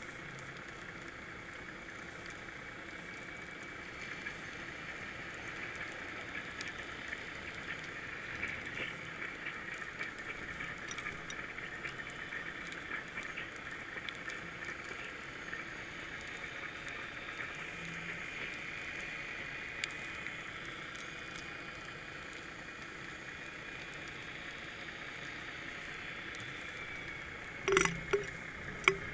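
Underwater ambience picked up by a GoPro in its waterproof housing: a steady muffled hiss with scattered faint crackling ticks. Near the end come a few sharp knocks.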